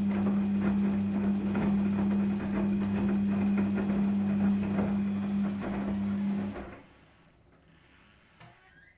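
Daewoo DWD-FT1013 washing machine running a Cotton 40°C wash: a steady low hum with fast ticking and rattling that cuts off abruptly about two-thirds of the way through, followed by a couple of faint clicks.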